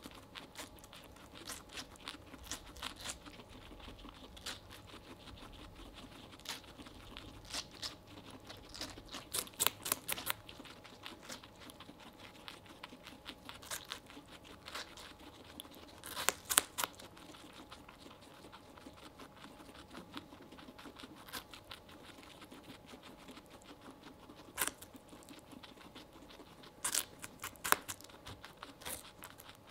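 Two guinea pigs biting and chewing watermelon flesh: a steady run of small crunches and clicks, with louder clusters of bites about ten seconds in, about sixteen seconds in, and near the end.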